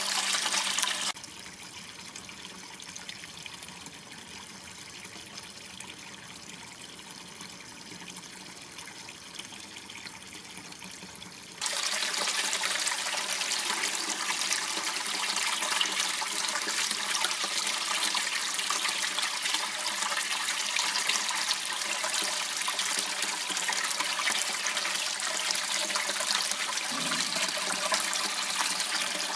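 Steady rush of water running in a small channel. About a second in it drops to a much quieter, duller hiss, and about twelve seconds in the full rush returns.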